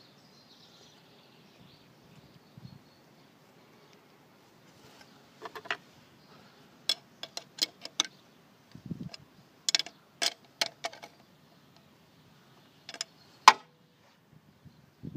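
A spanner clicking and tapping against the locknut on the fuel adjustment screw of a Bosch diesel injection pump as the locknut is retightened: a series of sharp, irregularly spaced clicks starting about five seconds in.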